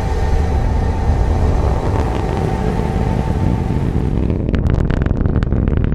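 SpaceX Starship's Raptor rocket engines firing at liftoff: a loud, continuous rumble. About four and a half seconds in, the hiss thins and it turns into a rapid, sharp crackle.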